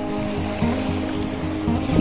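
Background music with held notes over a repeating bass line.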